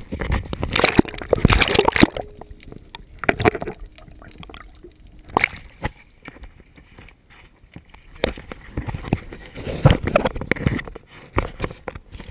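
Water sloshing and splashing against the side of a small boat, in irregular bursts, loudest in the first two seconds and again about ten seconds in, mixed with bumps and rubbing from the camera being handled.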